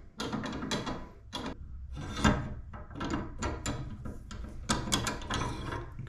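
Metal clicks, knocks and scraping as the steel monitor bracket plate of a dual monitor wall mount is slid off the arm's tilt head and handled, with one louder knock a little over two seconds in.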